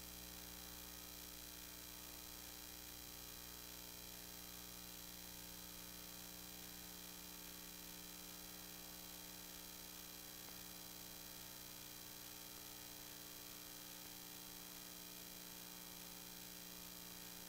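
Faint steady electrical mains hum with a light hiss, on an otherwise silent soundtrack.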